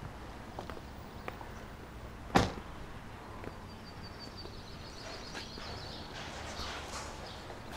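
A car door shuts with one loud thud about two seconds in, over a steady low street hum. Briefly in the middle, a bird twitters in a quick run of high notes.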